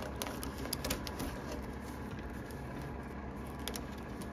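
Rubber bands being pulled off a plastic rear spoiler, snapping against it: a quick run of light clicks in the first second or so and one more near the end, over a steady low hum.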